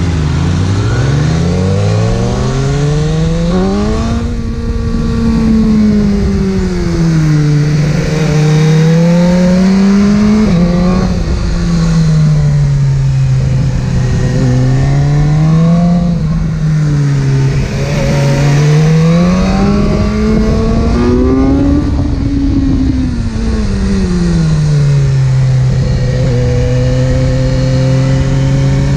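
Inline-four sport motorcycle engine under way, its pitch rising smoothly as it accelerates and falling as it slows, several times over, then holding a steady pitch near the end.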